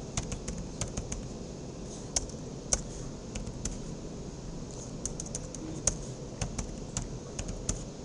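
Computer keyboard keys clicking in irregular runs of keystrokes with short pauses between them, as a command is typed.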